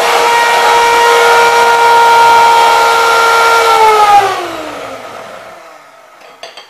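Electric hand mixer beating egg yolks and sugar in a glass bowl, its motor running at a steady whine. About four seconds in it is switched off, and the whine falls in pitch and fades as the motor winds down.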